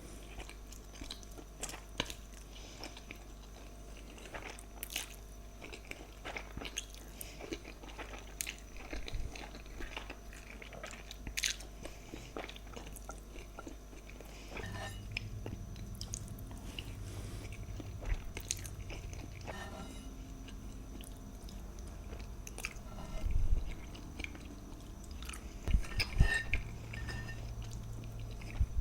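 Close-miked eating: steady chewing with frequent small wet mouth clicks and some crunchy bites. The loudest bites come near the end, over a steady low hum.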